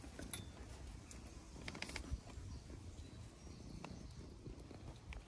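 Faint scuffling and a few small clicks from puppies moving and playing on stone paving, over a low outdoor rumble.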